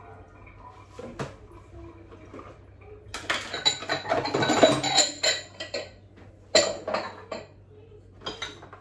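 Dishes and cutlery being handled and set down in a kitchen: a single knock about a second in, then a dense run of clinks and clatter for a few seconds, a sharp knock, and more clatter near the end.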